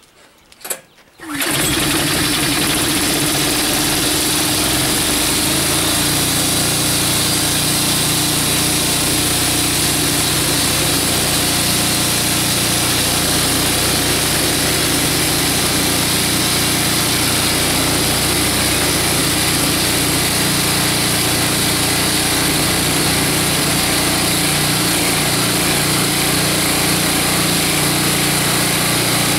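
Toro 521 snowblower's small single-cylinder gas engine starting on a little choke about a second in, then running steadily as it drives a homemade air compressor pump to fill an air tank.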